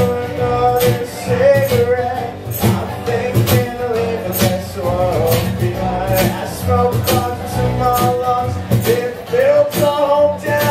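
Live acoustic band playing: several acoustic guitars strummed over a steady cajón beat, with a male voice singing lead.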